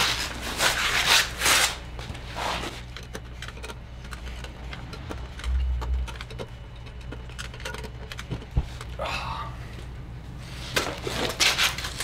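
Bursts of metal scraping and rubbing from a spoke torque wrench being fitted and turned on the spoke nipples of a Honda dirt bike wheel, with one sharp click about eight and a half seconds in, over a steady low hum.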